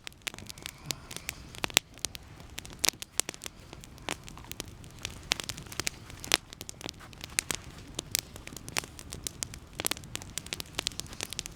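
Campfire burning and crackling: irregular sharp pops and snaps of burning wood over a low steady hiss.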